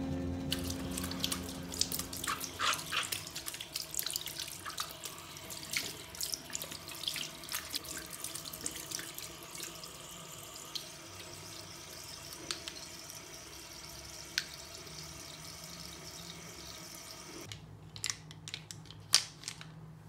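A wet makeup brush scrubbed against the bumps of a Nitori soap tray makes quick small scratchy clicks. After that the bathroom tap runs steadily into the sink while the brushes are rinsed by hand. A few sharp clicks of brushes being handled come near the end.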